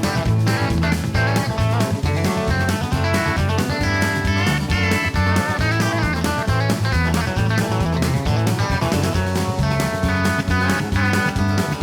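Background music: a guitar-led track with plucked and strummed guitar over a drum kit keeping a steady beat.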